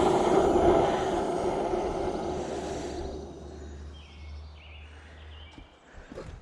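Gas forge burner roaring and dying away over about three seconds after the gas is shut off, leaving a faint low hum and a few light knocks near the end.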